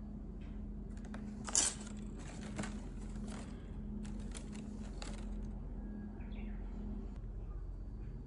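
Rustling handling noise with a sharp click about one and a half seconds in and a smaller one a second later, over a steady low hum.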